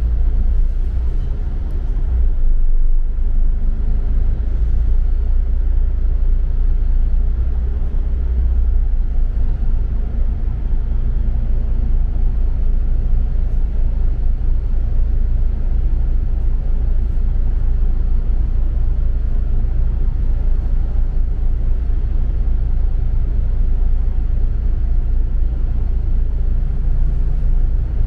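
Double-decker bus running on the road, heard from inside the passenger cabin: a steady low rumble of engine and road noise.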